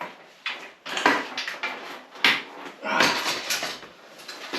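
Irregular clatter and knocks of metal motorcycle parts being handled and pulled off a dirt bike being dismantled, with a few sharp clicks.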